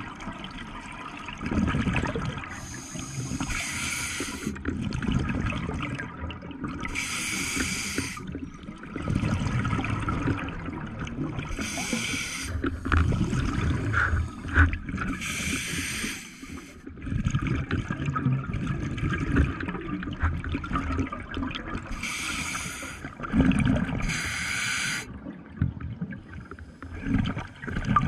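Underwater scuba breathing through a regulator: a short hiss as each breath is drawn through the demand valve every few seconds, and a low rumbling gurgle of exhaled bubbles between them.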